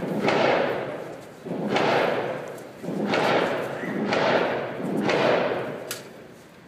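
Rifle shots fired in steady succession, about one a second, six or so in all, each with a long echoing tail; the string stops about six seconds in.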